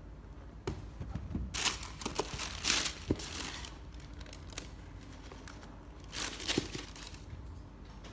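Tissue paper crinkling and rustling as a sneaker is handled and turned over its box, in two bursts: a longer one starting about a second and a half in, and a shorter one about six seconds in, with small clicks between.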